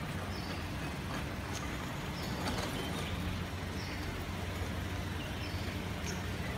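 Car engine idling, a steady low hum, with short high chirps every second or two.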